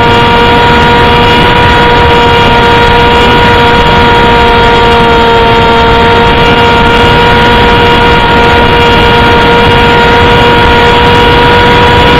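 Loud, steady electrical hum with static hiss: several fixed tones, the strongest a low buzz near 500 Hz, with no change in pitch or level.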